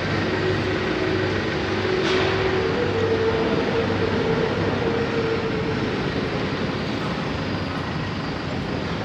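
Steady mechanical din of a CNC router factory workshop, with a low hum and a machine tone that steps up in pitch about two and a half seconds in.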